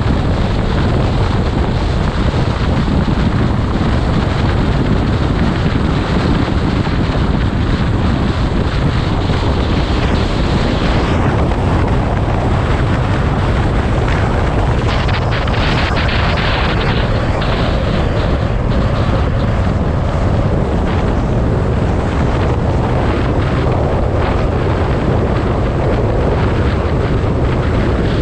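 Steady wind rushing over the microphone of a camera on a moving vehicle, with road and engine noise underneath.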